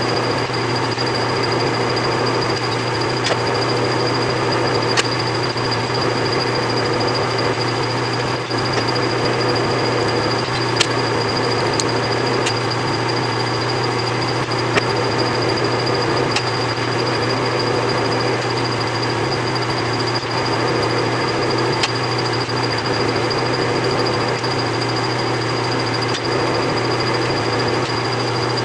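Large engine lathe running under power with the headstock in gear, single-point cutting the second start of a multi-start thread: a steady machine hum with a constant high whine and a few sharp ticks.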